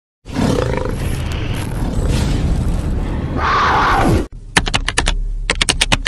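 Logo-intro sound effects: a loud rush of noise for about four seconds, closing with a falling sweep, then a quick run of sharp typewriter-like clicks, about six a second.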